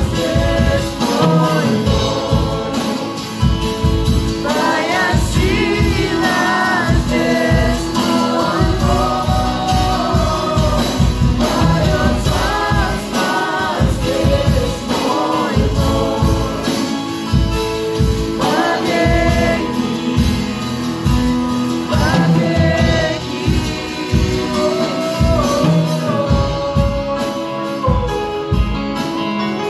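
Live worship band playing a Russian-language praise song: several voices singing together over acoustic guitar and keyboard, with a steady beat.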